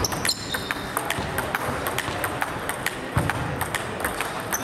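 Table tennis balls clicking off rackets and tabletops in a rally, among the scattered ticks of other matches in play in the same hall. A brief high squeak comes near the start.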